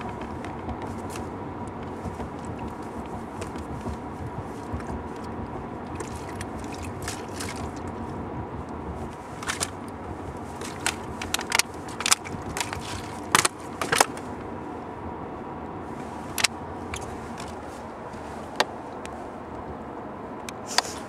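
Steady road and engine noise inside a moving car's cabin, with a scatter of sharp clicks and knocks, most of them bunched together from about halfway in.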